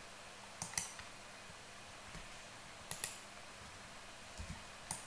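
Computer mouse and keyboard clicking, a few sharp clicks in close pairs, three times, over a faint steady background hiss, with a soft low bump near the end.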